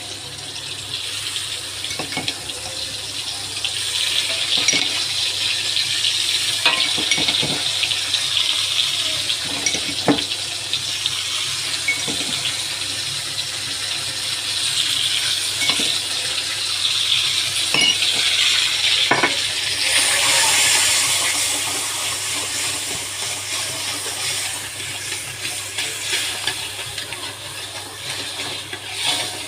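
Seasoning paste frying in a pan, sizzling steadily, with scattered clicks of a utensil stirring against the pan. The sizzle gets brighter and louder about two-thirds of the way through.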